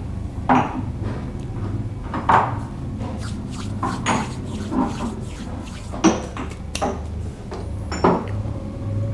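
Scattered light knocks and clatters of small hard objects being handled, irregularly spaced, over a low steady hum.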